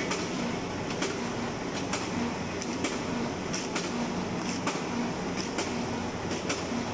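Pro-Falcons stainless-steel chicken cutting machine running steadily with a low hum, with sharp clacks about once a second as it works.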